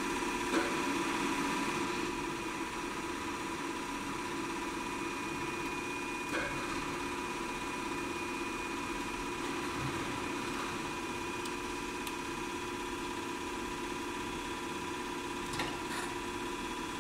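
Stankoimport 3E711B surface grinder running: a steady machine hum with a few steady tones, and a few faint clicks.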